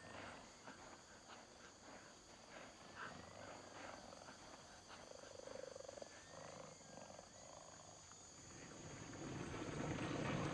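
Faint wildlife ambience: scattered short chirps and clicks, with a brief low animal call about five seconds in. A low rushing hiss swells near the end.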